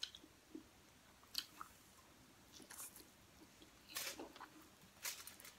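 Close-up mouth sounds of a person eating pancit noodles: soft wet smacks and chewing, with a brief slurp of noodles about four seconds in.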